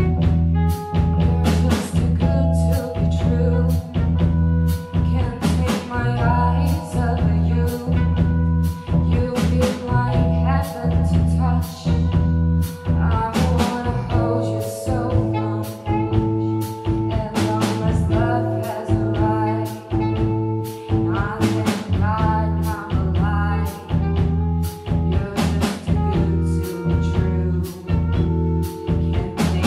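Live band playing a pop song with a steady beat: sung vocals over electric bass, drum kit, keyboard and saxophone.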